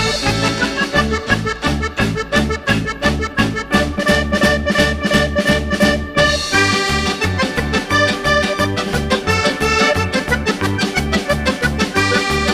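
Upbeat background music with a steady bouncing beat.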